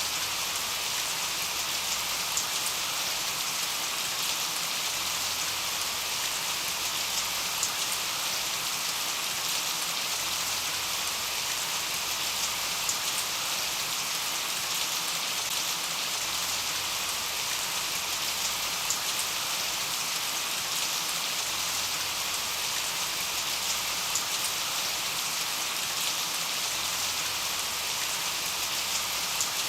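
Steady rain falling, an even dense hiss of many drops with small scattered drop ticks, unchanging throughout.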